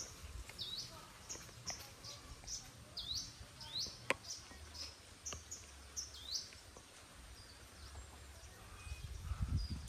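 Birds calling repeatedly in the open, a string of short, sharp chirps that drop steeply in pitch, over a faint outdoor background. A single sharp click comes about four seconds in, and a low rumbling noise builds near the end.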